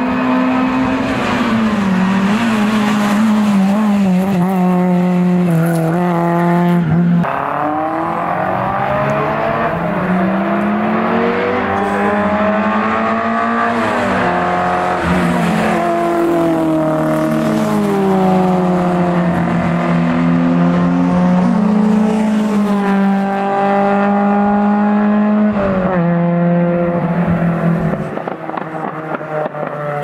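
Historic competition cars' engines at full throttle on a hill-climb, passing close one after another, one of them an Alfa Romeo Alfetta coupé. The revs rise and drop again and again through gear changes. The sound breaks off abruptly about seven seconds in and again near the end.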